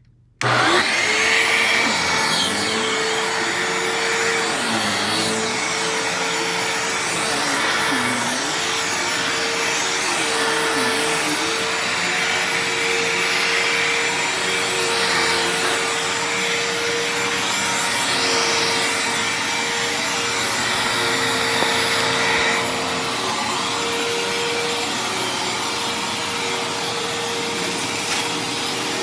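Hoover Tempo bagless vacuum cleaner switched on about half a second in, then running with a steady motor whine over a rushing hiss. Its sound wavers as it is worked across the floor.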